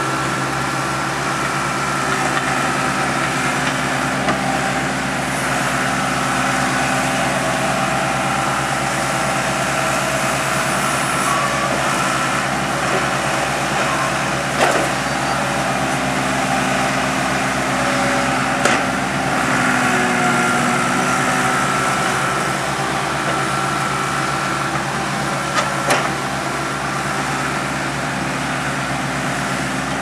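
John Deere 240 skid steer loader's diesel engine running steadily as the machine drives and works over loose dirt, with a few short sharp knocks.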